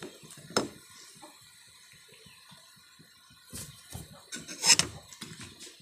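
A ladle stirring in a metal pot of boiling coconut milk and whole eggplants, splashing the liquid and knocking against the pot. After a sharp click under a second in it is mostly quiet; the splashing and clattering start about three and a half seconds in and are loudest near five seconds.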